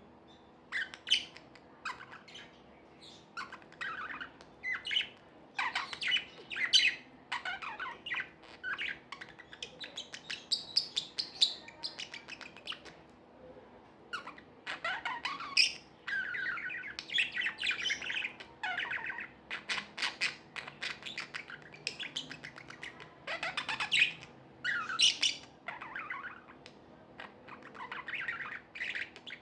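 Pet budgerigars chirping and warbling: a quick string of short chirps broken by stretches of continuous warbled chatter.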